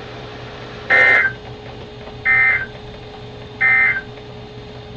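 Emergency Alert System (SAME) end-of-message data code: three short bursts of harsh, warbling digital data tone about 1.3 seconds apart, each lasting under half a second, over a faint steady hum from the receiver.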